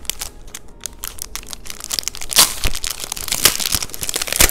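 Clear plastic sleeve crinkling and crackling as a paper colour-chart card is handled and slid out of it. The crackles get louder from about halfway through, with the sharpest near the end.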